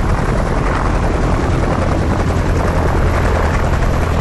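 Helicopter in flight: steady rotor and turbine noise with a heavy low rumble.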